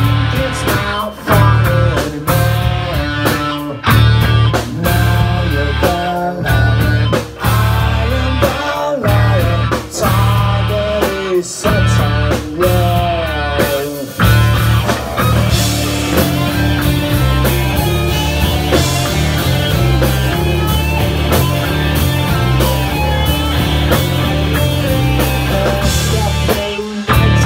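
Four-piece rock band playing: electric guitar, bass and drum kit. Through the first half the band plays short accented phrases broken by brief stops about every second and a half, then plays on without breaks.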